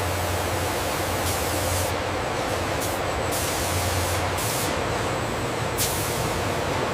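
Steady machine noise with a low hum, broken by several bursts of high hissing, each lasting about half a second to a second.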